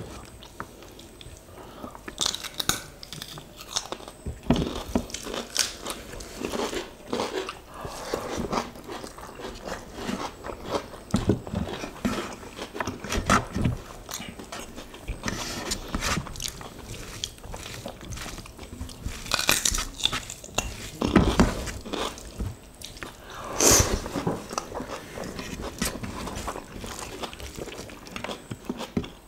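Close-miked chewing and crunching of mouthfuls of rice with sardines in soy sauce and quail eggs in sambal, eaten by hand, with wet mouth clicks; it is irregular, with a few louder crunches past the middle.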